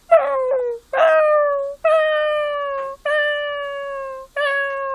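A man imitating a cat with his voice: a run of about six meows, the first two short and the rest drawn out to about a second each, every one sliding slightly down in pitch.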